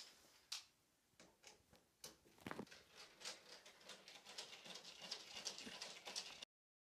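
Faint clicks, taps and rustling of hands handling the plastic casing and cover of a wall-mounted mini-split heat pump indoor unit. The sound cuts off abruptly near the end.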